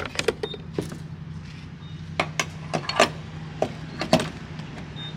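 Car interior with the engine idling as a steady low hum, while a series of sharp clicks and knocks sound irregularly, as things are handled inside the car.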